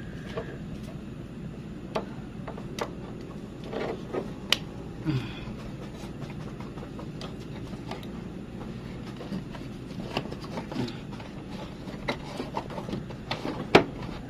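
Scattered plastic clicks and knocks of hands fitting an H4 mini LED projector bulb and its wiring into a car headlight's bulb socket, with one sharp click, the loudest, near the end.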